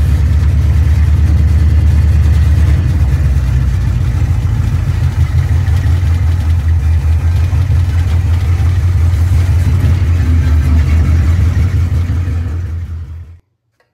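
1986 Ford F150's engine running loud through open headers with no mufflers, heard from inside the cab while the truck is driven. It is a steady, deep, pulsing exhaust note that fades and cuts off near the end.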